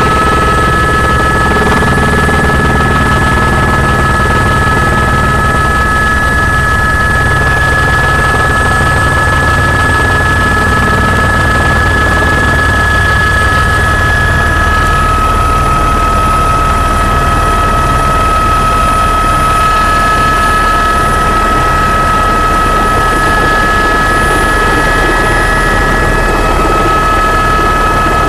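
Helicopter running steadily: a low, rapid rotor chop under a steady high whine.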